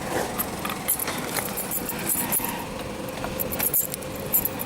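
Keys jangling, with scattered light metallic clicks and rattles, over a faint steady hum.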